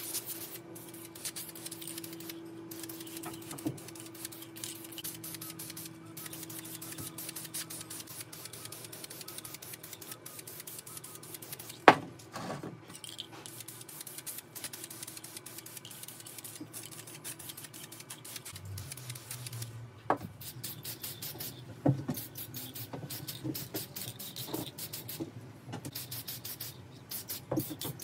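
Aerosol spray can spraying primer in many short, quick bursts of high hiss. There is a sharp knock about twelve seconds in, and a few lighter knocks later on.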